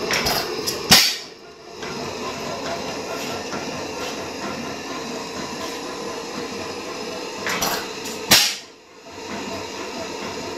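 Allan Brothers 3 hp continuous lamp oil engine running, a steady noise with a hum under it. Twice, about seven seconds apart, a short hiss ends in a sharp, loud bang.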